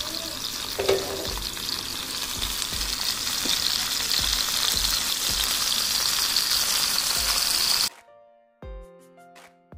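Marinated pomfret frying in hot coconut oil on a medium flame: a dense, steady sizzle that slowly grows louder, then cuts off abruptly about eight seconds in, giving way to soft background music.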